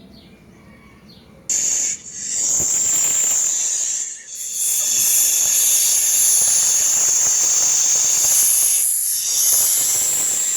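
Snake hissing: a loud, high-pitched hiss that starts suddenly, breaks briefly twice, then holds steady for several seconds before cutting off.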